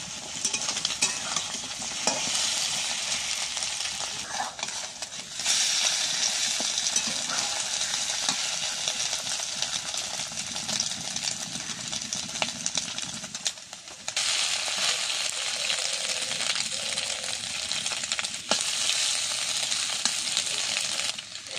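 Egg, potato strips and onion sizzling in hot oil in a metal karahi, stirred and scraped with a metal spatula that clicks against the pan. The sizzle grows louder about five seconds in and dips briefly about two-thirds of the way through.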